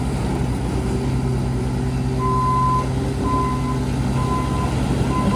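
JCB 3TS-8T telescopic skid steer loader's engine running steadily; about two seconds in its reversing alarm starts beeping, four single-pitch beeps about a second apart.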